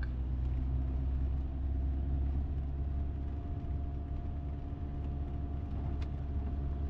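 Volkswagen T5 camper van driving, with a steady engine drone over a low road rumble.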